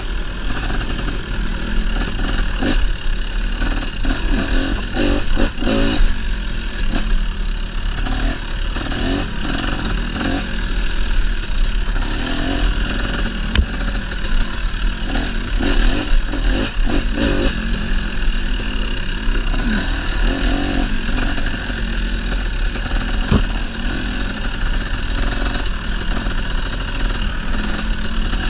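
Dirt bike engine running while the bike is ridden over trail, its pitch rising and falling with the throttle, with scattered knocks and rattles from the bike over rough ground.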